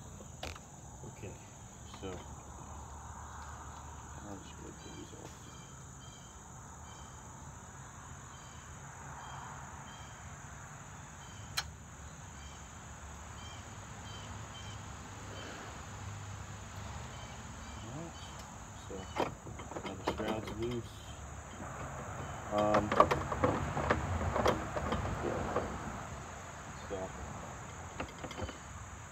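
Insects buzz steadily, with rows of high chirps repeating throughout. Scattered clicks and clanks come from tool work in the Jeep's engine bay, loudest in a burst of rattling about 23 seconds in.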